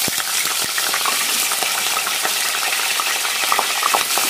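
Raw chicken pieces frying in hot oil in an aluminium pressure cooker as more pieces are added by hand: a steady, loud sizzling hiss with frequent small pops and crackles.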